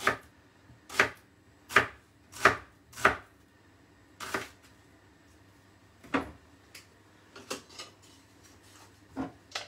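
Chef's knife slicing a red onion on a wooden chopping board, each stroke knocking on the board: five strong strokes in the first three seconds, then a few slower, fainter knocks.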